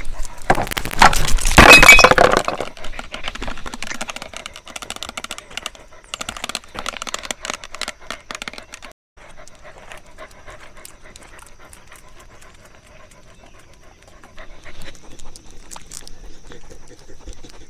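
A dog panting, with a loud burst of noise in the first couple of seconds, then scattered sharp clicks.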